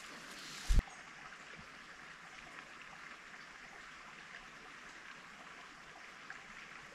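Steady, even rush of a forest stream, with a single dull thump just under a second in.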